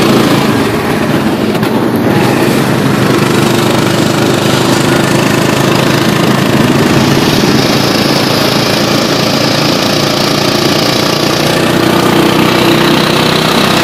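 Motorised tricycle's small motorcycle engine running steadily under way, loud and close from inside the sidecar. A higher hiss joins for a few seconds in the middle.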